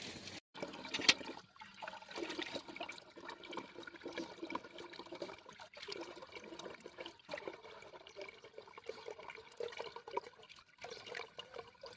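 Water running and splashing, an uneven rushing with scattered small clicks.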